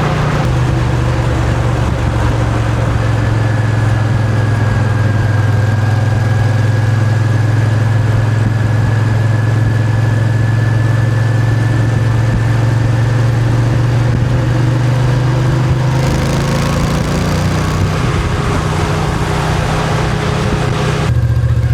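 Moto Guzzi V7's air-cooled transverse V-twin running at a steady engine speed, its pitch shifting about 16 seconds in and again near the end.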